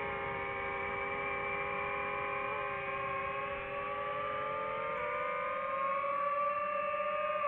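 DJI FPV drone's motors and propellers whining steadily as it flies, several tones together, rising a little in pitch about five seconds in as the drone changes attitude.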